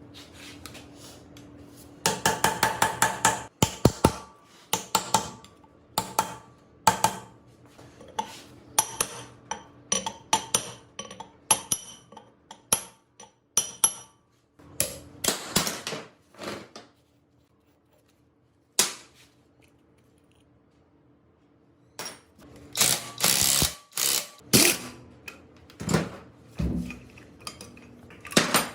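Hand tools working on metal engine parts: quick runs of sharp metallic clicks and clanks, some in rapid trains like a ratchet, with a lull of a few seconds about two-thirds through.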